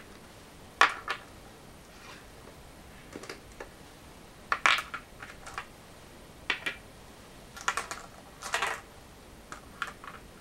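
Go stones clacking as a hand picks them up off a wooden go board and sets one down, sharp clicks in irregular clusters.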